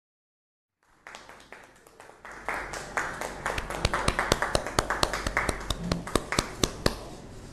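A small group applauding: scattered, separate hand claps over a low murmur. The clapping starts about a second in, swells about two and a half seconds in and dies away near the end.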